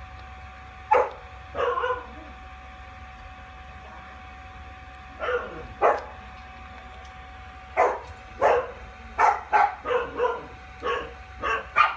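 Dog barking loudly: two barks about a second in, two more around five to six seconds, then a quickening run of barks over the last four seconds.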